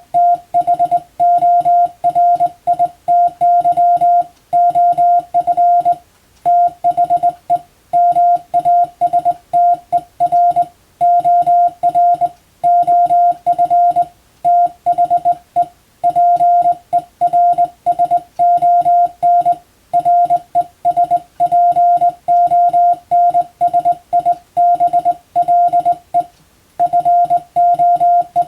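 Morse code (CW) practice signal: a single steady mid-pitched tone keyed on and off in short dots and longer dashes, with brief gaps between letters and words.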